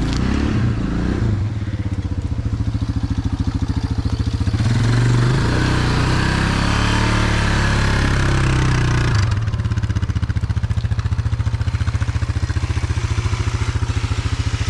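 An off-road vehicle's engine running under load, pulling a log. It revs up for about five seconds in the middle, then settles back to a steady run.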